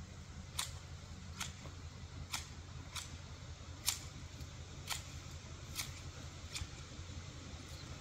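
Large garden shears snipping a bush, a sharp click at each cut, eight cuts at about one a second, over a steady low hum.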